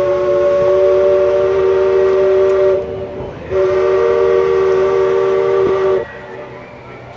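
Steam chime whistle of the Mark Twain sternwheel riverboat blowing two long blasts, the first about three seconds long and the second, after a short break, about two and a half. Each blast is one chord of several steady tones.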